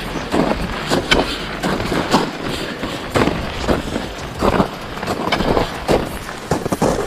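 Crampon-shod boots kicking and crunching into firm snow on a steep slope, with the ice axe jabbed in alongside: a string of irregular crunches about every half second.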